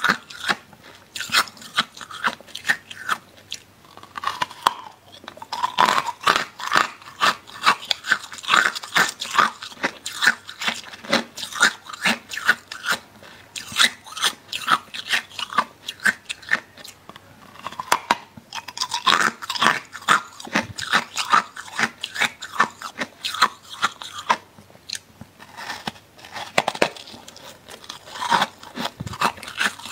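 Freezer frost being bitten and chewed close to the microphone: fast runs of crisp, crackling crunches, broken by a few short pauses.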